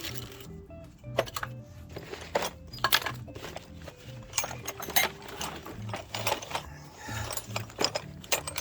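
Metal hand tools clinking and clattering irregularly as they are handled in a tool bucket, over steady background music.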